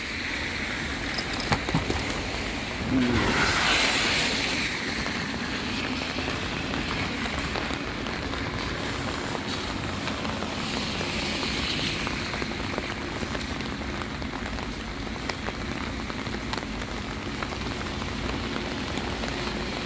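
Heavy rain falling steadily, with a louder rushing swell about three seconds in.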